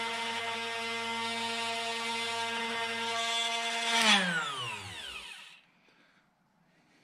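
Drill Doctor 750X drill sharpener's motor running steadily while a drill bit is ground in its sharpening port. It is switched off about four seconds in and spins down with a falling whine, stopping a second or so later.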